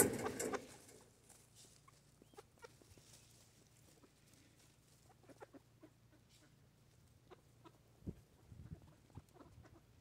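Mallard ducks quacking in a short burst at the start, then scattered faint ticks and rustles of their feet and bills in dry leaves, with a soft thump and a few more rustles about eight seconds in.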